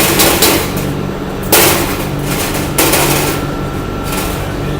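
Chipping hammer knocking slag off a freshly laid stick-weld bead: a few sharp metal strikes, the loudest about a second and a half in, over a steady hum.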